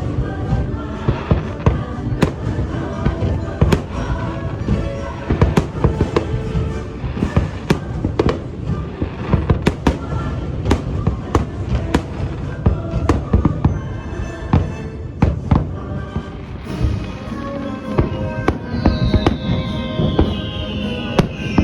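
Fireworks display: many bangs and pops in quick succession over a musical soundtrack. Near the end come two falling whistles.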